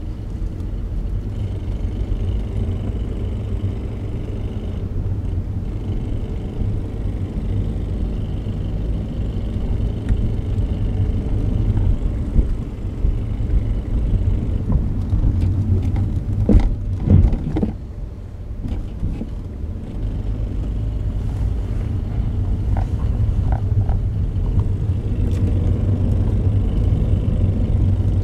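2004 Acura RL's 3.5-litre V6 and running gear under way, a steady low rumble, with a cluster of sharp clicks about two-thirds through and a few fainter ticks after it. The owner's complaint is a clicking noise that comes when accelerating, cause unknown.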